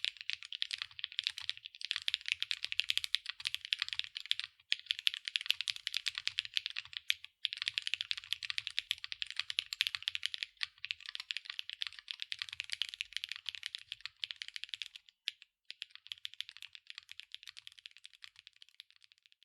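Fast, continuous typing on a NEO80 gasket-mounted mechanical keyboard with lubed Huano Gift linear switches, an aluminium plate and double-shot PBT/ABS keycaps. It is a dense stream of keystroke clacks, broken by brief pauses every few seconds.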